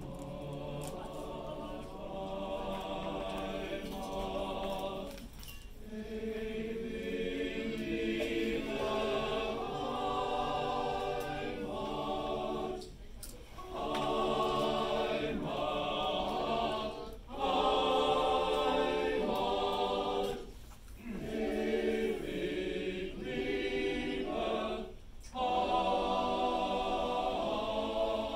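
Men's choir singing held chords, the phrases broken by short pauses about five times.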